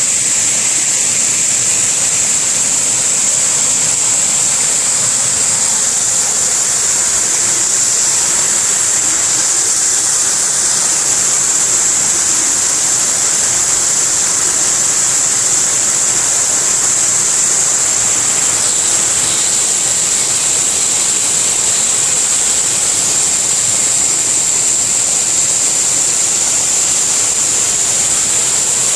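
Waterfall: a loud, steady rush of water pouring and splashing, even throughout.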